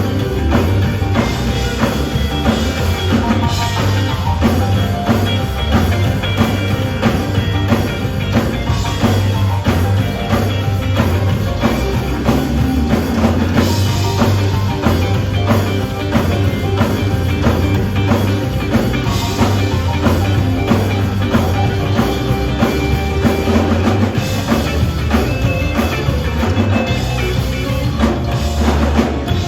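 Live band music with a drum kit keeping a steady beat over heavy bass.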